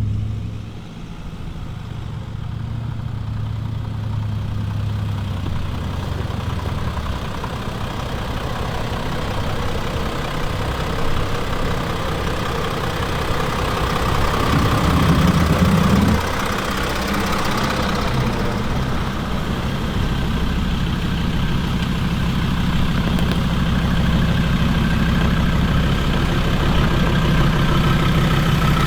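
Four-wheel-drive vehicle's engine running steadily, louder for a couple of seconds about halfway through, then easing off suddenly.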